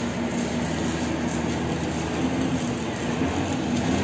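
Steady machine noise: a constant rumble with a low hum that drifts slightly in pitch.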